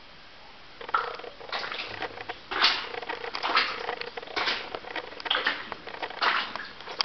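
Footsteps crunching on the gravel and rubble floor of a mine tunnel, about one step a second, starting about a second in.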